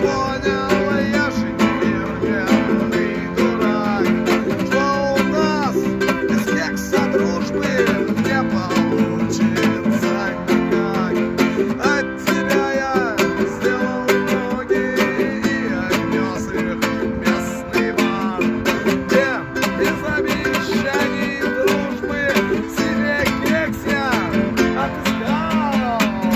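An acoustic guitar and a ukulele strummed together in a song, with a man singing along.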